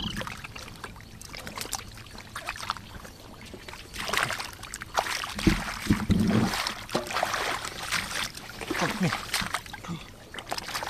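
Hands splashing and sloshing in shallow muddy water, groping through mud and grass roots for catfish. Irregular splashes throughout, louder and busier from about four to seven seconds in.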